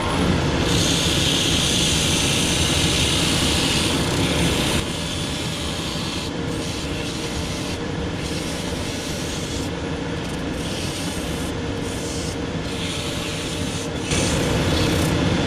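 Cobbler's finishing machine running, its abrasive wheel grinding the old sole off a sandal held against it. The grinding is harsher and louder for the first five seconds and again from about fourteen seconds, steadier and a little quieter in between.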